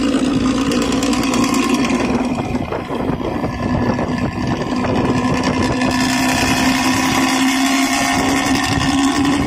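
Bus engine running steadily with its loud 'snoring' exhaust, a deep unbroken drone.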